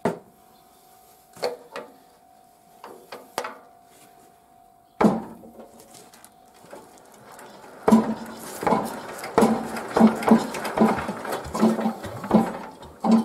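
Yanmar SS11C diesel engine on a walk-behind tiller being hand-cranked. A few metallic clanks and knocks come first. From about eight seconds in, rhythmic pulses come about twice a second as the engine turns over without starting.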